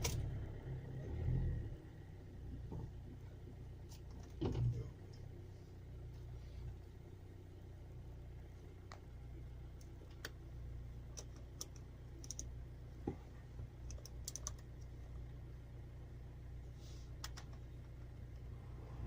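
Handling at a car's radiator filler while topping it up with water: scattered light clicks and knocks, with a few louder thumps in the first five seconds, over a steady low hum.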